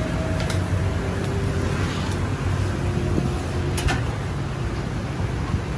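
Steady low background rumble with a few sharp metallic clinks of steel kebab skewers being handled, one about half a second in and another near four seconds.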